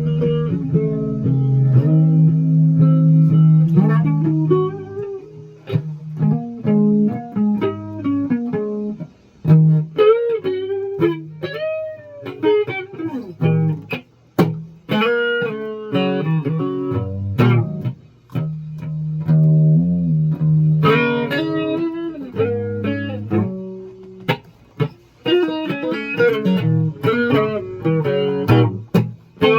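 Guitar playing a song. Single notes bend and waver in pitch over low held notes, with a few brief pauses.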